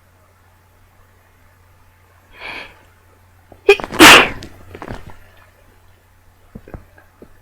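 A person sneezing once: a short breathy build-up about two and a half seconds in, then a loud, sudden sneeze about a second later, followed by a few faint clicks near the end.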